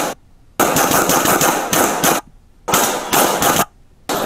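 Rapid handgun fire from several police officers, many shots in quick succession, picked up on a police body camera. It comes in stretches broken by short, sudden gaps of near silence where the footage jumps.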